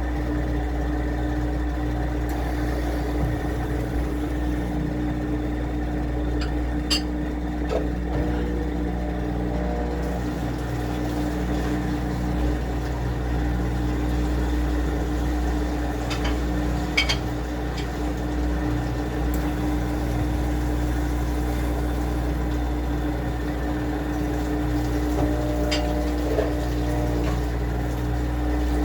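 Washing machine running with a steady motor hum, a few light clicks over it.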